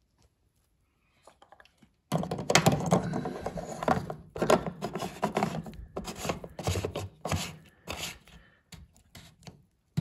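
Plastic drain-pump filter of a front-loading washing machine being screwed back into its housing by hand: a dense run of plastic scraping, clicks and knocks starting about two seconds in and thinning out near the end.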